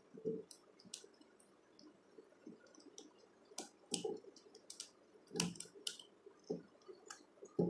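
Scattered small clicks and light knocks of a wire being handled and fitted to the terminals of a DOL motor starter's components.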